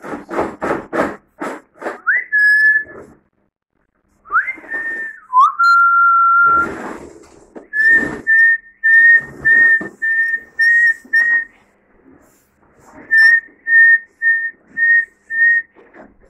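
A person whistling. First come a few whistles that slide up and are held for about a second, then two runs of short whistled notes at one pitch, about two a second.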